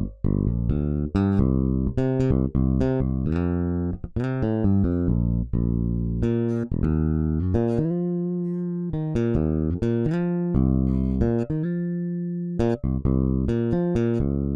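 Sampled electric bass guitar from the EzBass software instrument playing a gospel bass line: runs of quick plucked notes with a few notes held about a second.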